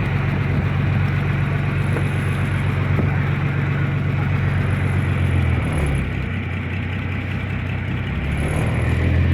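Fishing boat's engine running with a steady low drone. It eases off about six seconds in and picks back up near the end.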